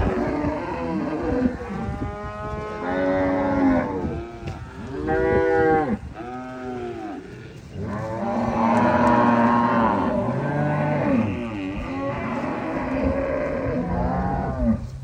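Several cattle mooing, with overlapping calls following one another, some drawn out for a second or more.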